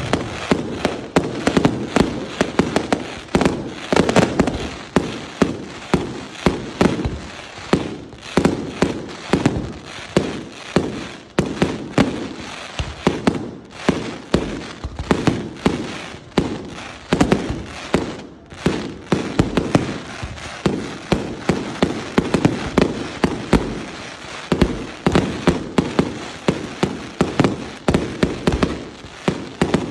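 Fireworks display: a continuous rapid barrage of launches and aerial bursts, several bangs a second without a break.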